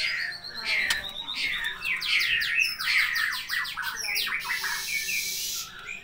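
White-rumped shamas singing: a quick run of falling whistled notes and chirps, with a harsh rasping call a little past two-thirds through.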